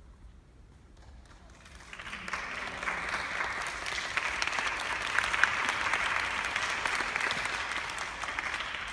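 Audience applauding, the clapping starting about two seconds in and easing off near the end.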